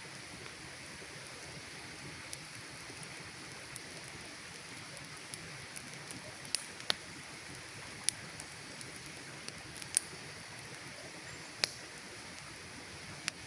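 Campfire crackling: irregular sharp pops and snaps over a steady soft hiss, with a few louder pops in the second half.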